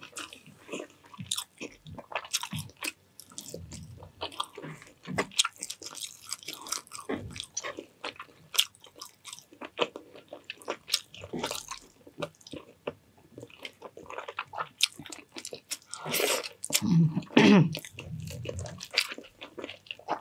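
Close-up eating sounds: a person chewing and biting a mouthful of fried rice and meat dipped in vinegar, with many short wet clicks and smacks. The chewing is louder for a couple of seconds near the end, with a brief low hum.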